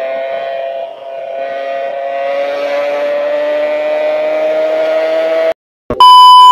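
Motorcycle engine running at held revs, its pitch creeping slowly upward, then cut off abruptly about five and a half seconds in. A loud electronic beep tone follows near the end.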